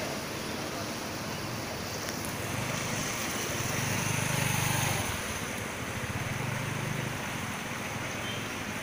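A motor scooter's engine hum passing through floodwater, loudest about four to five seconds in, over a steady rushing noise of moving water.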